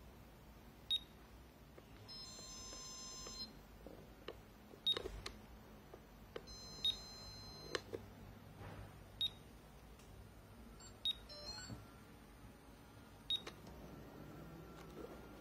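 High electronic whine of a small electric motor, twice for about a second and a half, between about seven sharp clicks with a short high ring, scattered irregularly over a faint low hum.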